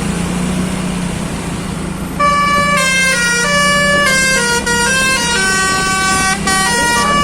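Telolet basuri musical air horn of a bus playing a tune: a loud run of held notes stepping up and down, starting about two seconds in. A steady low engine hum runs under it.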